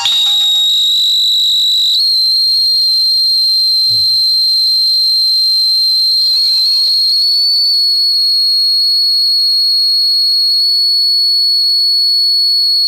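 A loud, steady, high-pitched whistling tone holding one pitch, with a slight step up about two seconds in.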